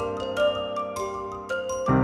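Background music: light, bright melody of struck, bell-like notes over sustained chords.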